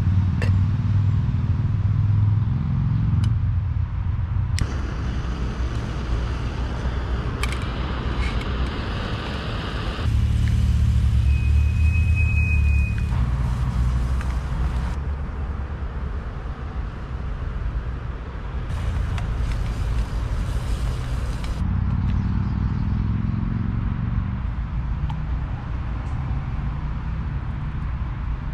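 Road traffic going round the roundabout: vehicles passing with a low engine and tyre rumble that swells and eases several times. A few light clicks sound close by in the first several seconds.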